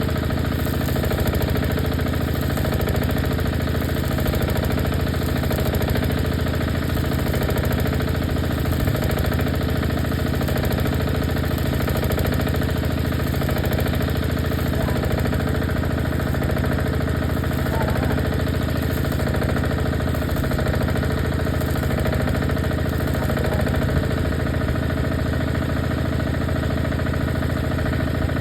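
Steady machine drone running at a constant speed throughout, like an engine or generator idling, with no change in pitch or level.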